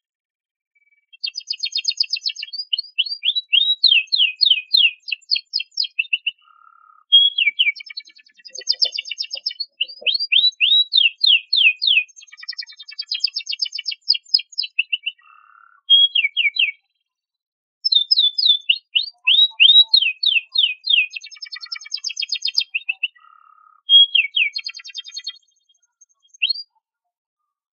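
Domestic canary singing: long phrases of fast trills made of rapidly repeated sweeping notes, broken by short pauses. The song stops near the end.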